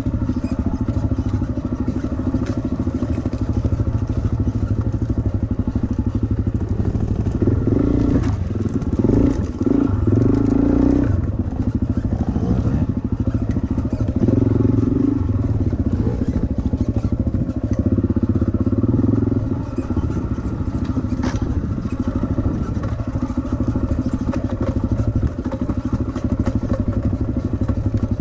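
A dirt bike's engine running close by as it rides a rough forest trail, its revs rising and falling in several bursts through the middle, with knocks and rattles from the bike over the bumps.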